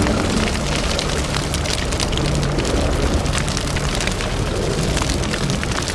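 Charcoal briquettes burning in a chimney starter, with flames leaping from the top. The fire makes a steady rushing noise under a low rumble, with frequent sharp crackles and pops.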